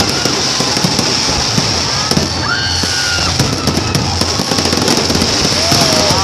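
Aerial fireworks display: a dense, continuous crackling and popping of bursting shells, with a few whistling tones over it.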